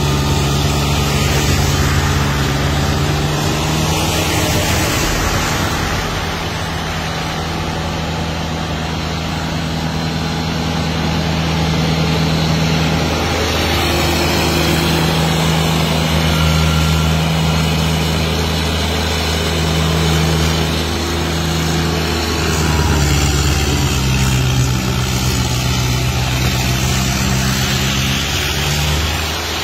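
Massey Ferguson GC1700-series sub-compact tractor's three-cylinder diesel running steadily under load, driving its front-mounted snow blower. The engine note shifts slightly a couple of times in the second half.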